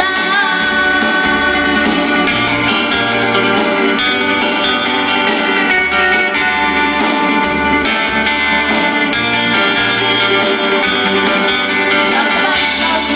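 Live band music: guitars playing with singing over them.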